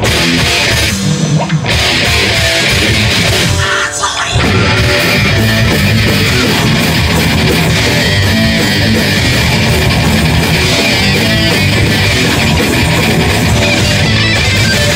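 Live heavy metal band playing loud, with distorted electric guitars, bass and drums. Short stop-start breaks in the first few seconds, then the full band plays on without a break from about four seconds in.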